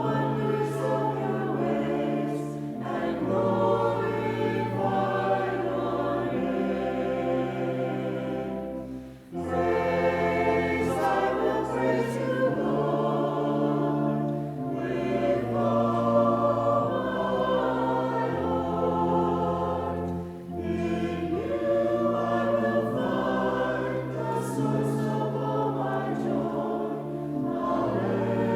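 A group of voices singing a slow hymn in held chords over sustained low accompanying notes, with short breaks between phrases about nine and twenty seconds in.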